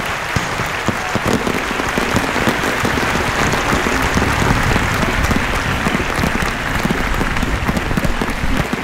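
An outdoor audience applauding while a fireworks display goes off, with the bangs and crackles of the shells mixed into the clapping.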